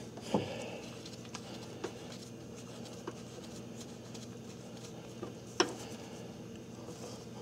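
Scattered light clicks and taps as a camshaft seal installer tool is fitted onto the camshaft by hand, with one sharper click a little past halfway.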